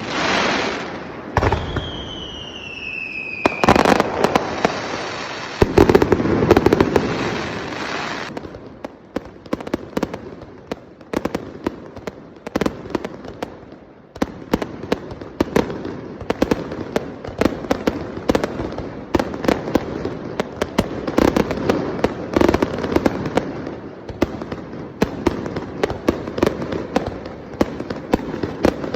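Fireworks display: big shell bursts with falling whistles in the first few seconds, then a long run of dense crackling and rapid pops.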